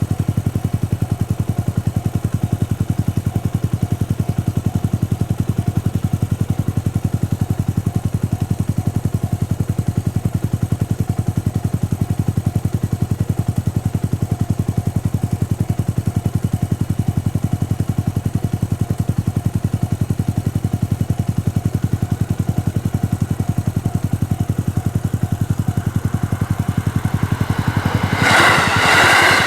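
Japanese railway level-crossing alarm ringing in a steady, rapid rhythm. About 28 seconds in, a train arrives at the crossing and its running noise rises sharply over the bell.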